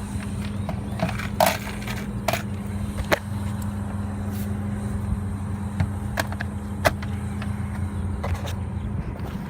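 Steady low mechanical hum from a running rooftop refrigeration condensing unit, with scattered sharp metallic clicks and clinks of work being done on the equipment.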